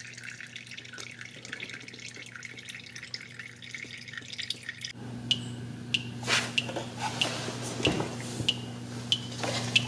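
Old automatic transmission fluid draining from a 2010 Ford Escape's transmission drain plug hole into a nearly full drain pan: a thin steady stream trickles into the fluid for about five seconds, then the flow tapers to separate drips plinking in about twice a second as the drain nears its end.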